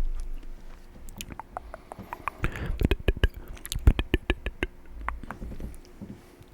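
Wet mouth sounds close to the microphone: a run of sharp clicks and smacks, densest in the middle and fading out after about five seconds.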